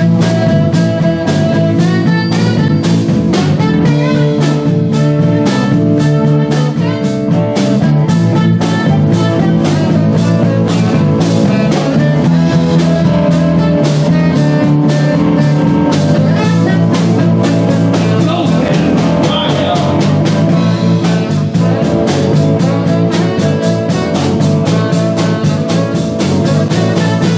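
Live rock-and-roll band playing an instrumental passage: saxophones, electric guitar, bass and drum kit over a steady beat.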